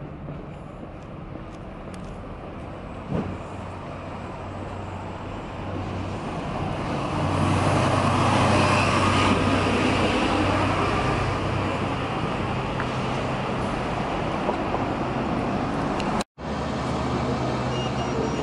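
Street traffic noise with a motor vehicle's engine growing louder and passing close by about halfway through, then steady road noise. The sound drops out briefly near the end.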